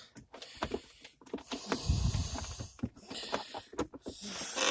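Handling noises from a handbrake gaiter being worked into the centre console trim: rustling and creaking of the gaiter material with scattered light clicks, and a dull thump about two seconds in.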